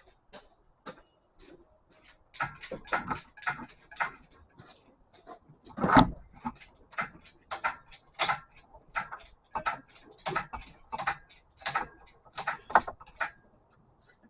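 A run of sharp, irregular metallic clicks and knocks, the loudest about six seconds in: hand tools and metal parts being handled during engine-removal work.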